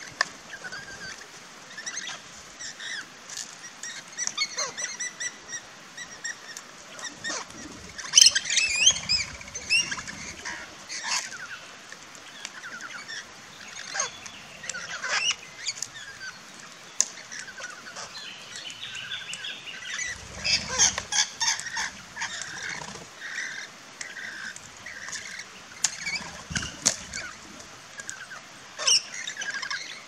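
A flock of parrots, rainbow lorikeets and crimson rosellas, keeps up a string of high chirps and screeches, with wing flaps as birds fly in and out. The calls come in louder, denser bursts about a third of the way in and again a little past two-thirds.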